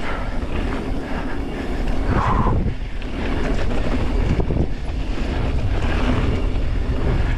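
Mountain bike rolling fast down a dirt and gravel trail: a steady rumble of tyres on loose ground, with the bike rattling over bumps.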